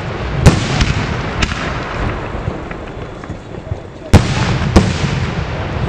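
Aerial firework shells bursting overhead: loud sharp bangs about half a second in and again just after four seconds, with several smaller reports between them and a rumble lingering after each.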